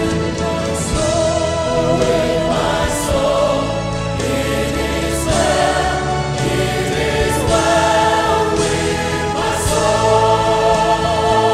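Gospel choir singing sustained harmonies with keyboard accompaniment.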